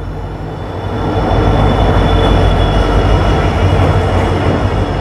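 Passenger train arriving along a station platform: a steady rumble of the coaches rolling in, louder from about a second in, with a thin high squeal from the wheels.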